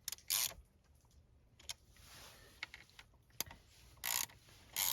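Socket ratchet wrench tightening cylinder bolts: a short ratcheting burst just after the start, a few scattered clicks, then two more ratcheting bursts near the end.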